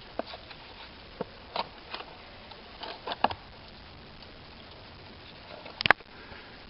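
Footsteps on the ground while walking, heard as scattered, irregular light thuds and clicks, with one sharper, louder knock about six seconds in.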